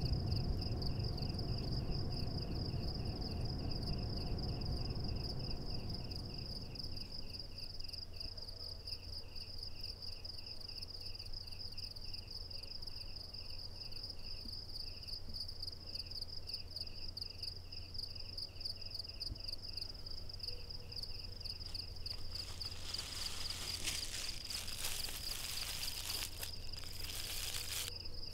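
Night ambience of crickets chirping steadily: one insect with a continuous high pulsing trill and another with a lower chirp repeating, over a low hum. A deep rumble fades out over the first several seconds, and a stretch of hissing noise rises and falls near the end.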